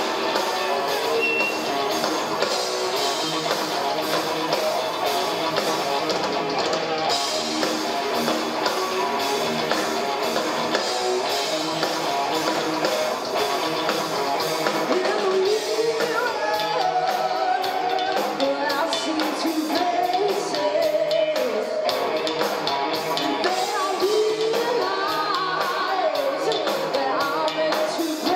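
Live rock band playing a song at full volume: distorted electric guitars, bass and drum kit, with a woman singing lead that comes to the fore in the second half.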